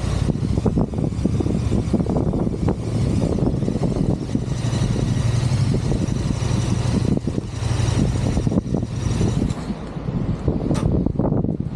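A motor vehicle engine running steadily, under gusty wind rumble on the microphone.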